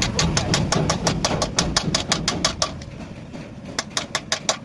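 Rapid, evenly spaced sharp clicks, about six a second, stopping about three seconds in and starting again for a second run, over a low rumble that fades away.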